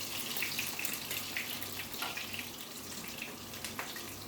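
Food sizzling as it fries in hot oil in a grill pan: a steady hiss with small scattered crackles and pops.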